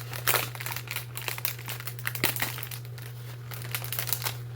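Plastic packaging crinkling and crackling in irregular bursts as it is handled and pulled open by hand, over a steady low hum.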